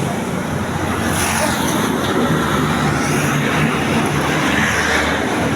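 A tour bus's engine running steadily amid loud, even outdoor noise.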